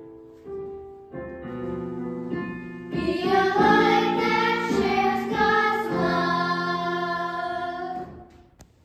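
A small group of children singing together in unison over instrumental accompaniment. The accompaniment plays alone at first, the voices come in about three seconds in, and the song ends shortly before the end.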